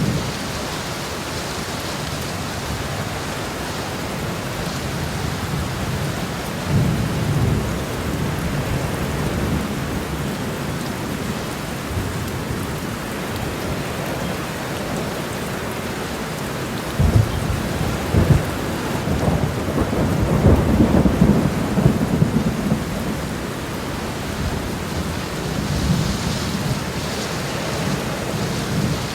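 Heavy rain pouring steadily onto a road, a dense even hiss of drops. Deeper low rumbling surges rise through it about seven seconds in and again, loudest, from about seventeen to twenty-two seconds in.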